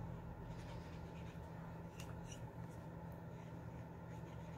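Faint scratchy strokes of a felt-tip blending marker dabbed and rubbed across cardstock, clearest as a couple of quick strokes about two seconds in, over a steady low hum.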